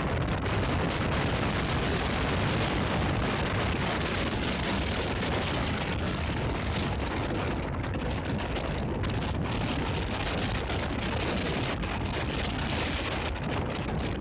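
Blizzard wind blowing steadily, buffeting the microphone with a constant low rumble under a dense hiss.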